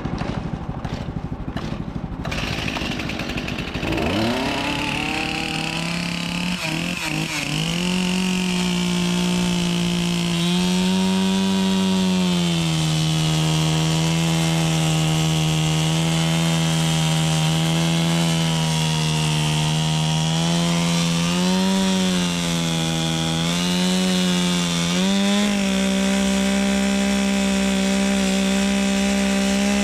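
Woodland Mills HM130 MAX bandsaw sawmill's gas engine winding up about four seconds in, then running hard as the band blade cuts into an oak log. The engine speed sags and holds lower under the cut, lifting briefly a couple of times and rising again near the end, over a steady rasp of the blade in the wood.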